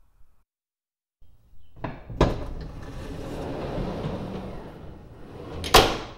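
Sliding guard door on a Hardinge HNC lathe's enclosure being run along its track. A knock about two seconds in sets off a rolling, rumbling slide, which ends in a loud bang as the door hits its stop near the end.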